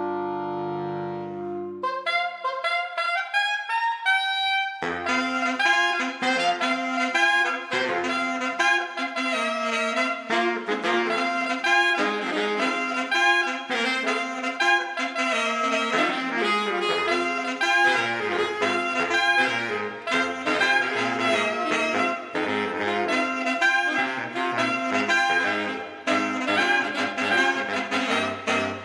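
Saxophone quartet of soprano, alto, tenor and baritone saxophones in a jazzy arrangement. A held chord about two seconds long gives way to a single saxophone running up in quick notes, and from about five seconds in all four play a fast, busy passage.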